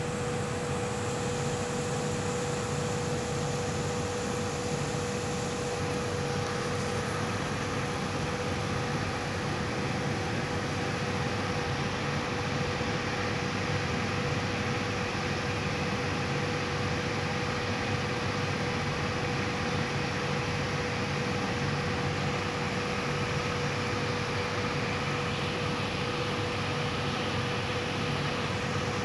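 A steady mechanical hum with a constant hiss beneath it, unchanging throughout.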